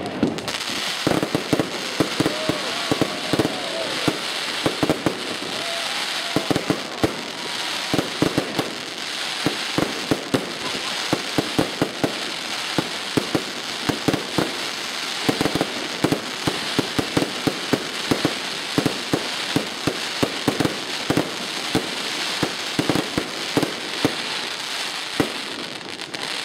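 Fireworks display: a continuous, rapid barrage of sharp bangs and crackles over a steady hiss as shells and rising comets go off in quick succession.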